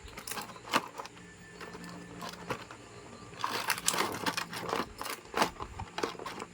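Plastic toy packaging and a figure being handled, making irregular sharp clicks and crinkles that come thicker in the second half.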